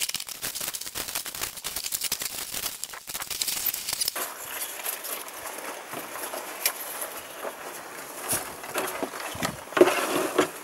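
Polystyrene packing chips and cardboard rustling and crackling as hands dig through a shipping box. It is busiest in the first four seconds, with a louder burst near the end.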